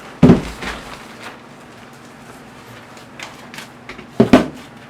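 Plastic worm-bin trays knocking and clattering as they are handled and set down: a loud thump just after the start, a double knock near the end, and a few lighter clicks between.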